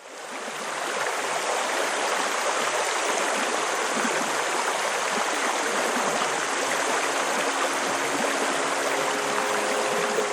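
Fast-flowing stream rushing steadily, fading in over the first second. Soft sustained music tones start to come in near the end.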